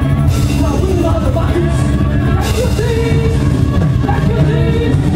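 Alto saxophone playing a melody live over a band with bass and drums, with cymbal crashes about a third of a second in and again about two and a half seconds in.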